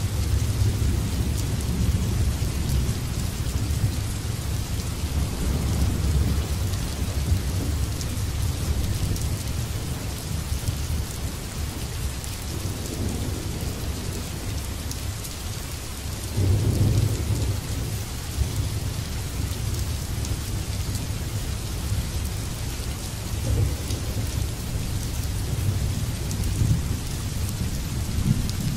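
Steady rain falling, with thunder rumbling low throughout and a louder roll of thunder a little past the middle.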